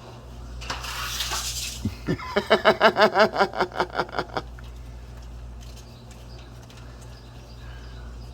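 A short burst of hiss, then a bird's rapid chattering call of about a dozen notes, some five a second, lasting about two seconds.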